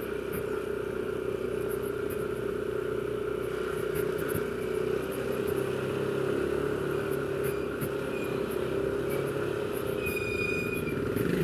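Yamaha NMAX 155 scooter's single-cylinder engine running steadily. A brief high whistle-like tone sounds near the end.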